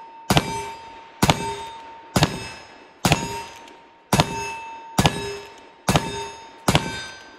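A pair of Pietta Great Western single-action .38 Special revolvers loaded with black powder, fired in an even string of eight shots a little under a second apart. Each shot is followed by the ring of a steel plate target being hit, fading before the next shot.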